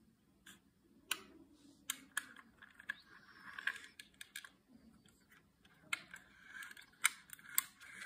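Small plastic-and-metal clicks and snaps of a diecast model car's hinged doors and trunk lid being worked by hand, about ten sharp clicks at uneven spacing, with short stretches of rubbing and scraping between them.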